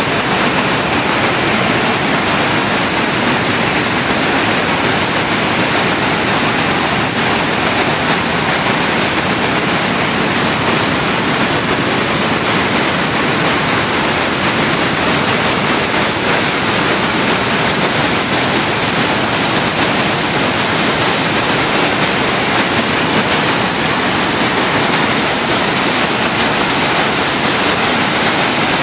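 River in flood: fast, muddy floodwater rushing and churning in a loud, steady rush with no letup.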